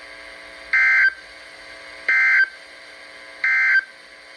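Emergency Alert System end-of-message signal: three short bursts of SAME digital data tones, each about a third of a second long and a little over a second apart, marking the end of the alert message. A faint steady hum runs underneath.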